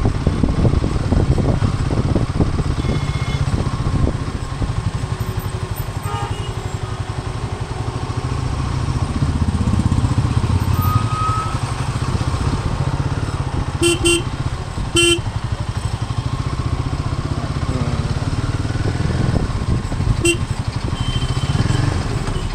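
Royal Enfield Himalayan 450's single-cylinder engine running steadily as the motorcycle is ridden, with its exhaust note rising and falling with the throttle. A vehicle horn sounds a few short beeps past the middle.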